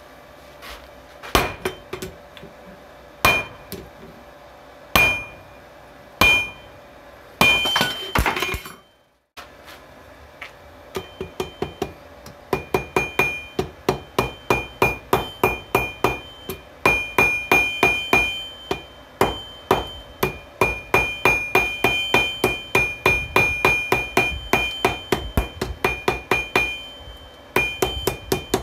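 Hand hammer forging steel on a 66 lb anvil, each blow ringing briefly. A few spaced strikes come first, then after a short break steady rapid hammering at about three blows a second.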